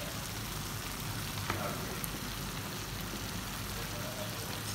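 Tomato, onion and ginger sauté with whole raw shrimp in it, sizzling in a frying pan: a steady frying hiss, with a couple of faint clicks about a second and a half in.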